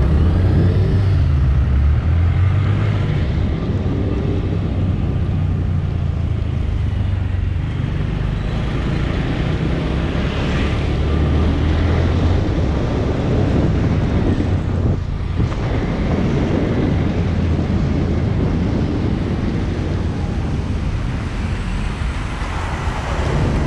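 Honda MSX 125's single-cylinder engine running under way, its note shifting up and down every few seconds with throttle and speed, over wind and road noise.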